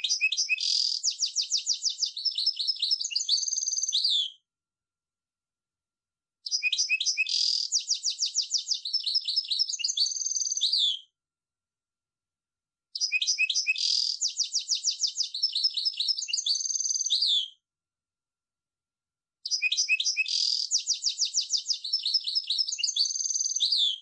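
European goldfinch song: a rapid, high-pitched twittering phrase of quick repeated notes ending in a falling note, repeated four times with short silent gaps between.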